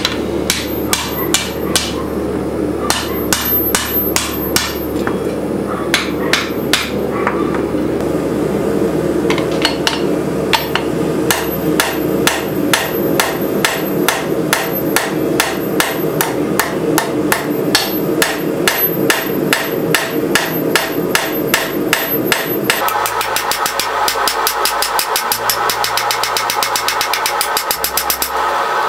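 Hand hammer forging a red-hot rebar blade, striking steady blows about two to three a second with a brief lull about eight seconds in. A steady hum runs underneath and turns higher and more hissing near the end.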